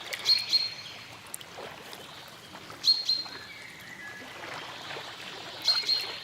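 A bird calling a short, high double chirp three times, about every two and a half seconds, over a steady background hiss.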